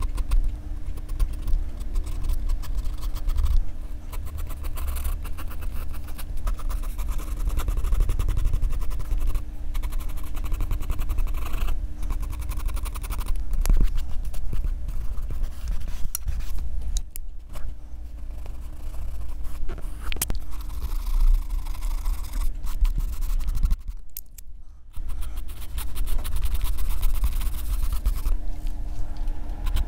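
Graphite pencil scratching on drawing paper in rapid short strokes, with brief pauses, and a faint steady hum underneath.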